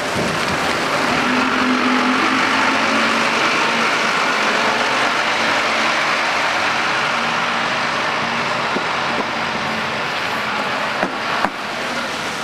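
A bus engine running with a steady hum under a loud, steady hiss of tyres on a snowy road, with two sharp knocks near the end.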